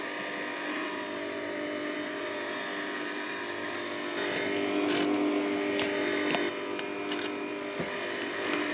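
Electric meat grinder running with a steady motor hum as the pusher forces baby beets and pike fish-cake mixture through the grinder plate. It gets a little louder for a couple of seconds around the middle.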